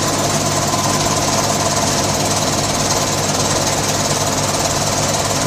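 Three-stage DMC3 home CNG compressor running steadily with a fast mechanical rattle. Its drains are closed and it is building pressure through stages 1, 2 and 3.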